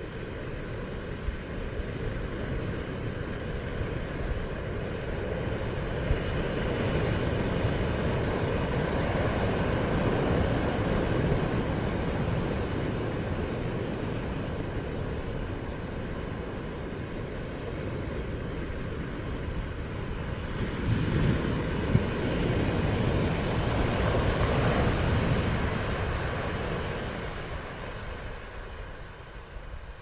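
Small ocean waves breaking and washing up a sandy beach, a steady rush of surf that swells twice, about a third of the way in and again about three-quarters through, then eases near the end.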